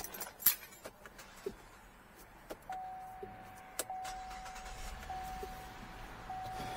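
A few clicks and rustles, then a dashboard warning chime: one steady tone that restarts about every 1.2 seconds. From about four seconds in, a low rumble builds underneath as the 2016 Cadillac SRX's 3.6-litre V6 starts on its new battery.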